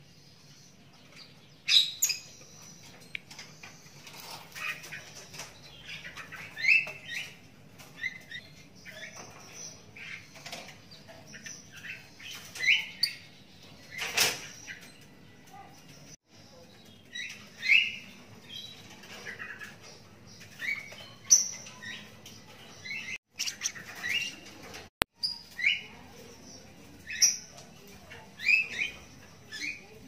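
Young lovebird chick giving short, high chirping calls, one or two at a time, every second or two.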